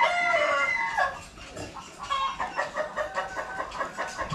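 Chickens: a rooster's crow ends about a second in, followed by a run of short clucks.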